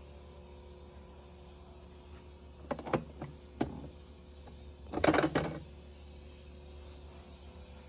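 A few sharp clicks and clattering knocks, the loudest cluster about five seconds in, over a steady low hum.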